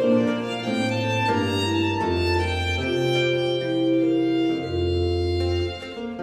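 Background music: slow bowed strings, violin over a sustained cello-like bass, notes held and changing about once a second.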